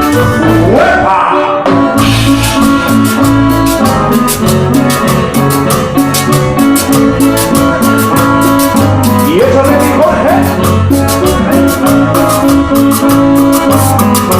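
Live cumbia band playing, with a steady, quick percussion beat over a repeating bass line. A rising slide is heard twice, about a second in and again about halfway through.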